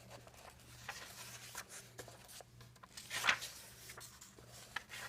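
Coloring book pages being handled and turned: soft paper rustles and brushes, the loudest a little over three seconds in, over a faint steady hum.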